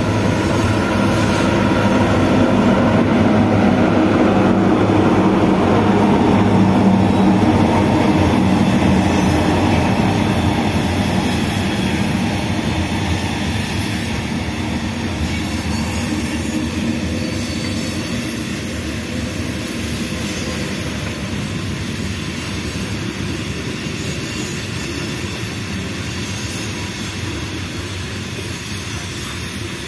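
Freight train passing: BNSF diesel locomotives running mid-train give a loud, steady engine drone in the first several seconds. As the covered hopper cars roll by, this gives way to a steady rolling noise of wheels on rail that slowly fades.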